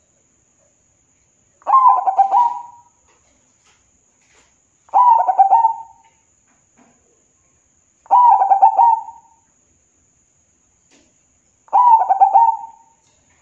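Zebra dove (perkutut) singing its cooing song: four short phrases of rapid staccato notes, one about every three seconds.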